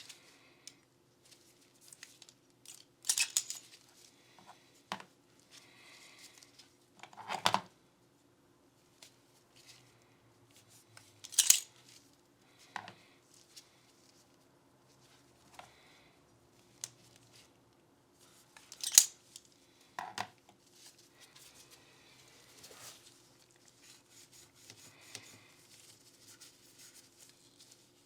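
Close-up handling sounds of Glock pistol parts and cleaning tools: scattered sharp clicks and short scraping rasps, the loudest about three, eleven and nineteen seconds in, over a faint steady hum.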